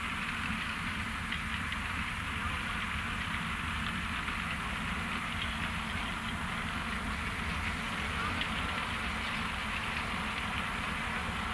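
ROPA Maus 5 sugar-beet cleaner-loader working at the clamp: a steady low machine rumble under a dense, continuous crackle and rattle of beet tumbling along the pick-up and loading conveyor.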